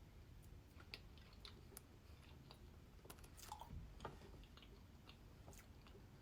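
Faint chewing and small wet mouth clicks from someone eating soft pistachio cream cake, with a few louder clicks about three to four seconds in.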